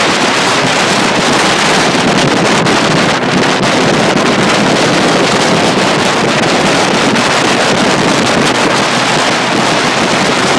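Wind rushing over the microphone of a small motorboat under way across choppy water, a loud, steady rush with no distinct engine note.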